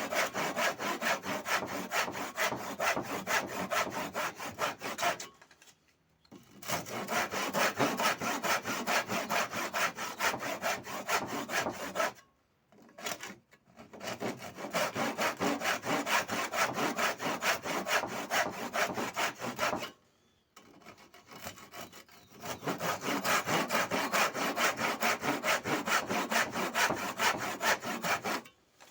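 Wood being sawn by hand in quick, even back-and-forth strokes, in several long runs with short pauses between them.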